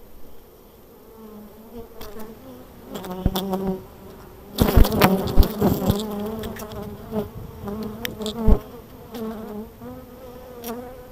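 Honey bees buzzing close around an open hive, several wavering buzz tones that grow louder about halfway through as a frame of new wax foundation is lifted out. Sharp wooden knocks and clacks come with it, from the frame being pried loose and handled.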